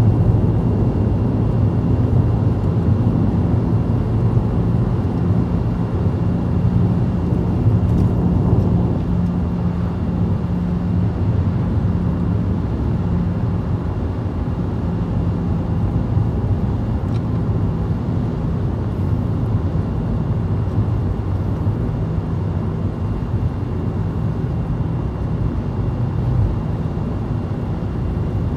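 Car cabin noise while driving: a steady low engine hum and road rumble heard from inside the car.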